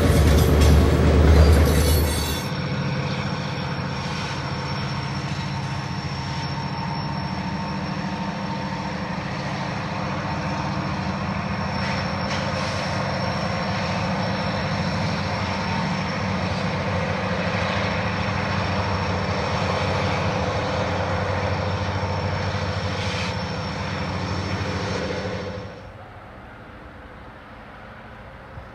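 Loaded covered hopper cars of a heavy freight train rolling past on the rails. This cuts off suddenly and gives way to the steady hum of the train's diesel locomotives working hard up a grade, trailing black exhaust smoke. Near the end it drops abruptly to a much fainter, distant sound.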